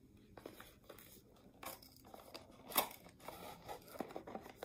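Cardboard earbud retail box being pried and torn open by hand: scattered crinkling, scraping and small tearing noises, with one louder, sharper rip nearly three seconds in.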